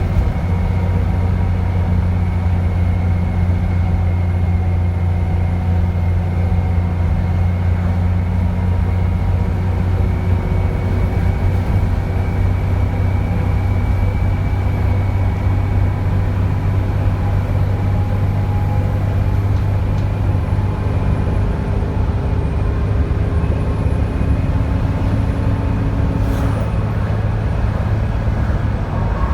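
Dennis Trident 2 double-decker bus's diesel engine running steadily under way with a low drone and a high turbo whistle. A faint, very high whine dips and rises in pitch during the second half, and there is a brief sharp sound near the end.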